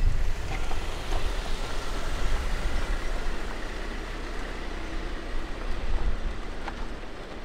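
Range Rover on all-terrain tyres crawling slowly over a rocky dirt trail and pulling away: a low engine rumble and tyre noise over rock, with a few sharp clicks of stones.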